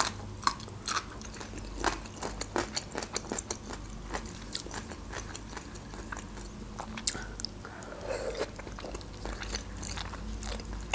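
A person chewing and biting crunchy food close up: a steady run of sharp crunches and wet mouth clicks.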